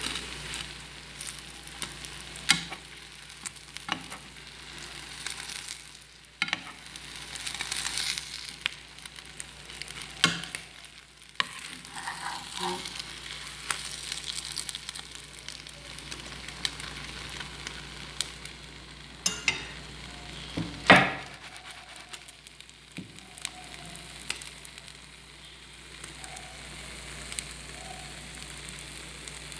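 Egg omelette frying in a non-stick pan with a steady sizzle, while a spatula knocks and scrapes against the pan now and then as it is turned and folded. The loudest knock comes about 21 seconds in.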